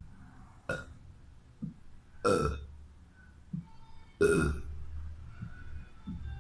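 A boy burping repeatedly: one short burp a little under a second in, then two longer, louder burps about two seconds apart.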